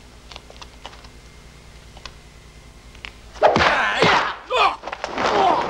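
A few faint clicks over quiet, then about three and a half seconds in, men break into loud fighting yells and cries as a group brawl starts, their voices swooping sharply in pitch.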